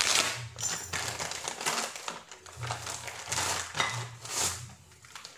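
Plastic packaging crinkling and rustling in irregular bursts as a parcel is unwrapped by hand.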